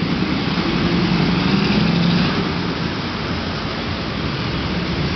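Busy city street traffic: engines and tyres of passing cars and vans, steady and loud. A vehicle passing close makes it swell for the first couple of seconds, then it eases off.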